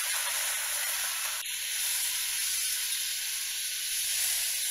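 Water poured into a hot pan of oil-fried masala paste, sizzling and hissing steadily as it hits the hot oil and turns to steam. The sizzle thins slightly about a second and a half in and carries on.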